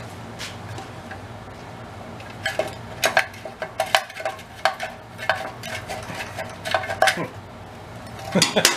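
Metal parts and tools being handled: a run of light metallic clinks and taps, many with a brief ring, starting about two and a half seconds in and stopping around seven seconds, with a few more clicks near the end. A low steady hum lies underneath.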